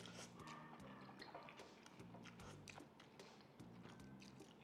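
Quiet slurping and chewing of noodles, with light scattered clicks of forks against plates.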